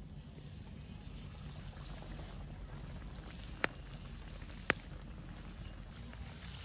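Battered catfish frying in hot oil in a cast-iron skillet over a campfire: a steady sizzle that starts just after the beginning and grows louder near the end as another piece is lowered in. Two sharp pops about a second apart come midway.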